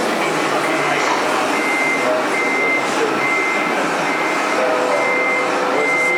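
Reversing beeper of a radio-controlled model truck's sound module, a high beep repeating about once a second as the truck backs up, over a noisy background with murmuring voices.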